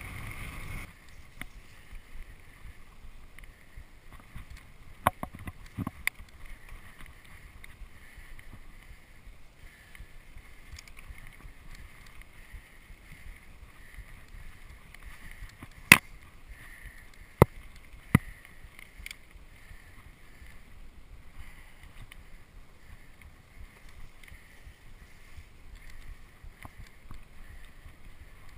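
Mountain bike riding down dirt singletrack, heard from a camera on the rider: a steady rush of tyre and rolling noise with the bike rattling, and a few sharp clacks as it hits roots and rocks, two about five seconds in and a loud cluster of three around the middle.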